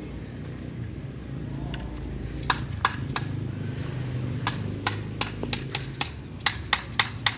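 Hand tool striking repeatedly: about a dozen sharp, irregularly spaced knocks, starting a couple of seconds in, over a low steady rumble.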